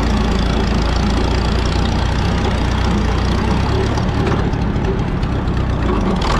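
Minneapolis Moline ZB tractor's four-cylinder engine running steadily.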